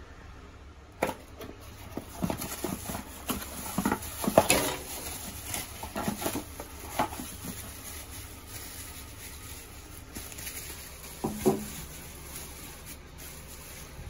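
Plastic bubble wrap and a cardboard box being handled and unwrapped: irregular crinkling and crackling clicks, busiest in the first half, with a single knock about eleven seconds in.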